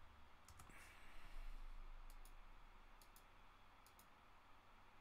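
Faint computer mouse clicks, in quick pairs about four times, over quiet room tone.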